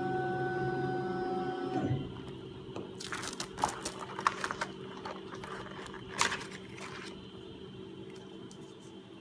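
The Jingwei RC03 pattern cutting and milling machine running with a steady whining hum that cuts off about two seconds in, as its motor stops. Irregular crackles and clicks follow over a fainter steady hum.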